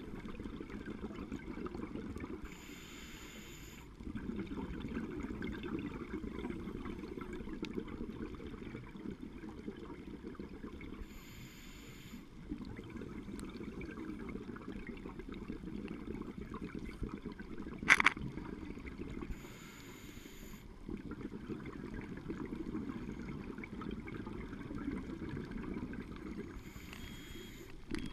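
Scuba regulator breathing heard underwater: long rumbling streams of exhaled bubbles, broken four times by a short hissing inhalation, about every eight seconds. One sharp click about two-thirds of the way through.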